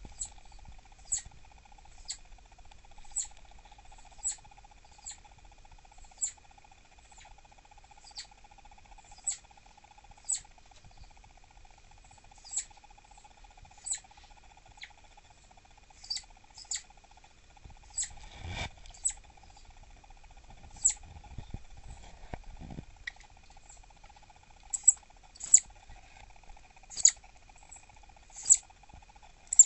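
Southern flying squirrel giving short, high-pitched chirps about once a second, its cry when annoyed; the chirps come closer together and louder near the end. One thump a little past the middle, over a faint steady hum.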